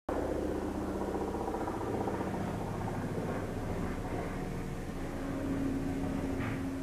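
Steady hum of distant road traffic, with an engine tone growing louder near the end.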